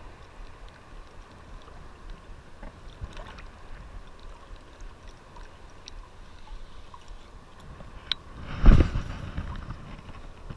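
Shallow surf water swishing around a wading angler, with faint ticking from a baitcasting reel being wound. About eight and a half seconds in comes one sudden loud whoosh as the rod is swung in a cast.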